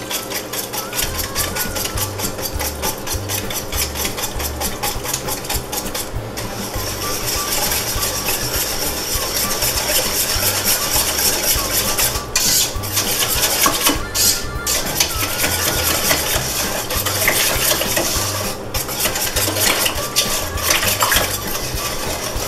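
A wire whisk beats thick barbecue sauce in a stainless steel pot, scraping and clinking against the pot's sides and bottom in rapid, steady strokes.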